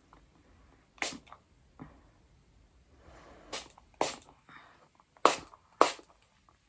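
Small pump spray bottle of facial mist sprayed in five short bursts, the last two the loudest.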